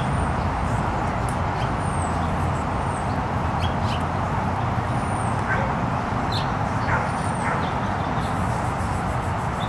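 Steady outdoor background rumble and hiss, with a few short, faint, high chirps scattered through it.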